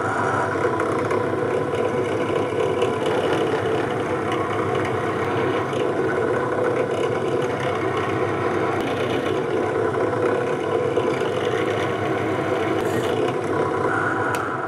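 Benchtop drill press running steadily. It spins a homemade rivet-spinning tool that is pressed down onto an oiled aluminium rivet to flare its head into a mushroom shape.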